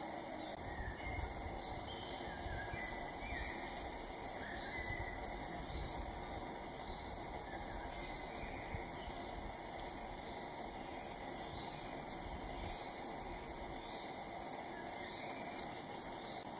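Small birds calling: short, high notes repeated about twice a second, mixed with slurred whistled chirps, over a steady low background noise.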